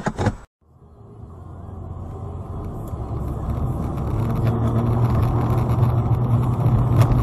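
Road and engine noise of a car driving on a snowy road, heard from inside the cabin through a dashcam. It fades in after a brief silent cut about half a second in, then holds steady, with a single knock near the end.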